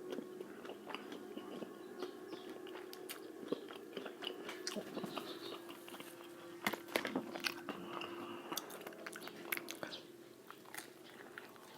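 Close-up eating of crispy fried chicken (Jollibee Chickenjoy): irregular crunching bites into the crispy skin and wet chewing, over a faint steady hum.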